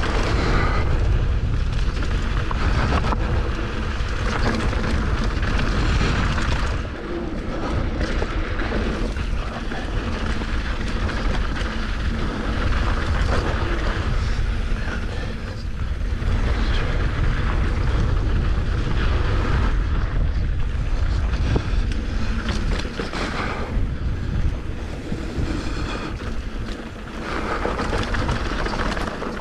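Mountain bike riding fast down a rocky dirt trail: steady wind rumble on the microphone, tyres on dirt and loose rock, and the bike rattling over bumps, easing briefly a couple of times.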